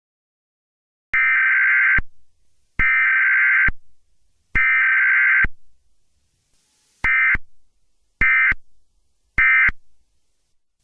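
Emergency Alert System (SAME) digital data bursts: three buzzing bursts of about a second each carrying the alert header, then three short bursts that signal the end of the message.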